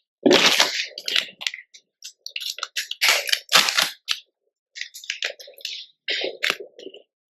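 Blue glitter chalk being crushed, crunching and crackling in a run of short bursts with brief silences between; the loudest crunch comes just after the start.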